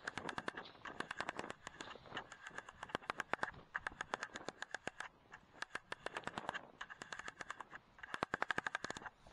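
Quick runs of sharp clicks, several a second, in bursts broken by short pauses: the zoom control of a Pulsar Digex C50 digital night-vision riflescope being clicked through its steps as the magnification is wound down, picked up by the scope's built-in microphone.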